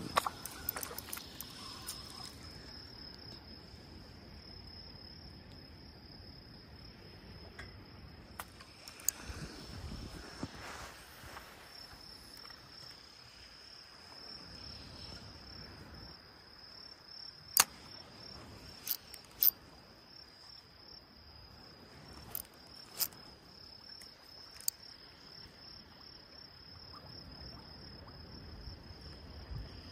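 Insects, likely crickets, keep up a steady high-pitched trill. A handful of sharp clicks, the loudest sounds, come about halfway through.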